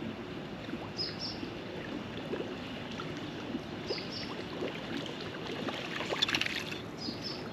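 Water lapping and trickling against a small boat's hull, with a short high chirp repeating about every three seconds and a few small clicks about six seconds in.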